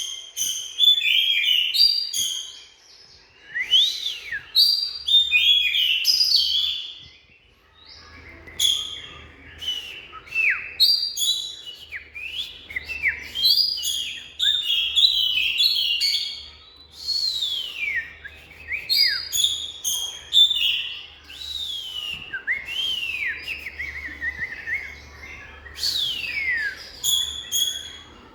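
Oriental magpie-robin singing: a varied song of clear whistles, quick notes and sweeping downward slurs, in phrases with short pauses between them.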